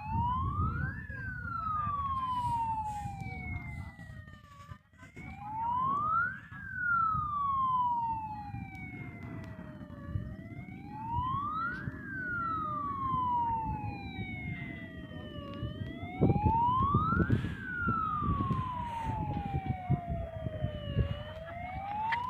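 Fire engine siren wailing in a slow cycle: each wail rises quickly to a peak, then falls away slowly, repeating about every five and a half seconds, over a low rumble.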